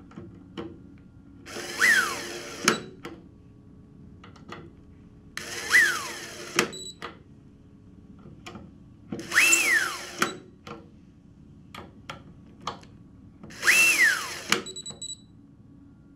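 Brushless electric screwdriver driving four machine screws in turn. Each run is about a second of motor whine that climbs, then drops as the screw seats, and ends in a sharp click when the torque clutch trips. Light clicks come between the runs, and a short high tone follows the second and the last screw.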